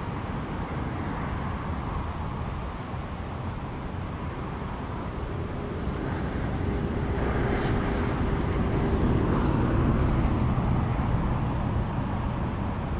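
Steady rumbling outdoor noise that swells for a few seconds past the middle, with a few faint, brief high chirps.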